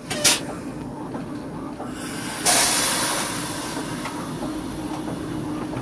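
TEP70 diesel locomotive running, with a sharp knock just after the start. About two and a half seconds in, a sudden loud hiss starts and then slowly fades.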